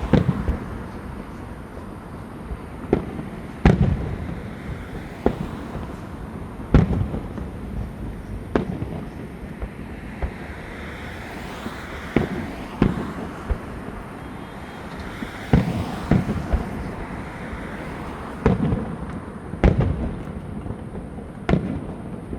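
Fireworks going off: a string of sharp bangs at irregular intervals, about one every second or two, each trailing off briefly, over a steady background hiss.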